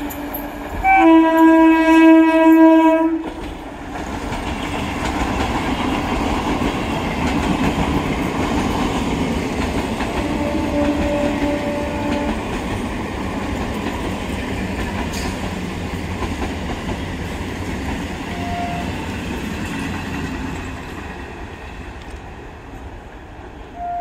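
An electric local train's horn sounds one loud, steady blast of about two seconds, followed by the rumble and wheel clatter of trains running past at speed. A fainter, shorter horn sounds about ten seconds in, and the running noise fades near the end.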